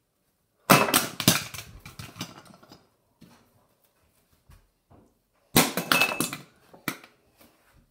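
A plastic toothbrush clattering on a bathroom vanity countertop after being flipped: a burst of rattling knocks about a second in that dies away over a couple of seconds, then a second clatter about five and a half seconds in, ending with one last tap.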